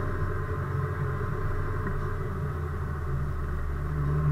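Car engine and road noise heard from inside the cabin while driving: a steady low rumble with a slight rise in the engine note near the end.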